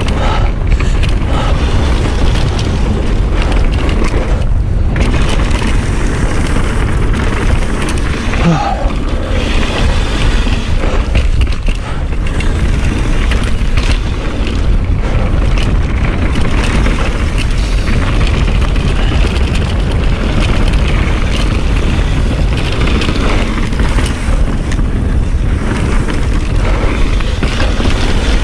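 Mountain bike descending a fast dirt trail: steady loud wind rumble on the microphone mixed with tyre roar and the rattle of the bike over rough ground.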